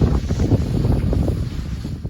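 Loud, gusty wind buffeting the microphone, a rough irregular rumble.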